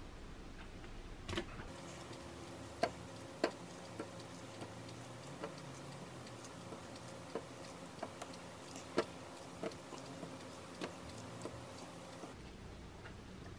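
Kitchen knife cutting through a banana held in the hand, giving scattered soft clicks and taps as the blade goes through and the slices drop into a bowl of yogurt, over a faint steady hum.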